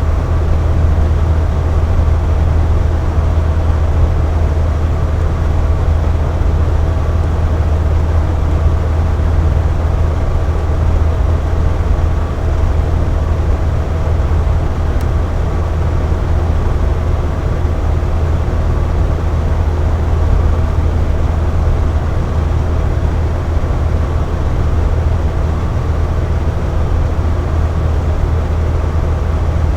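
Box fan running steadily: an even rush of moving air over a strong low motor hum, with faint steady tones above it.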